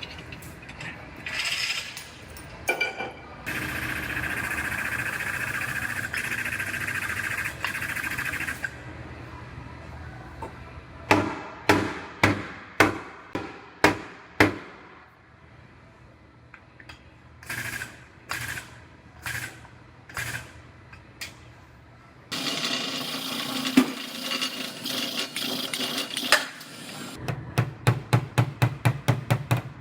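Hammer blows on car-body sheet metal, tapping out buckles in a quarter panel during collision repair, ending in a quick run of taps about five a second. Between the groups of blows come two stretches of steady mechanical noise from shop equipment.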